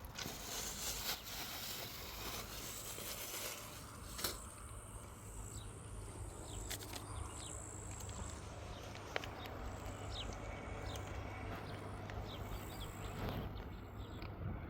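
Faint outdoor ambience: short high chirps from small creatures scattered through it over a steady low hum, with a couple of sharp knocks.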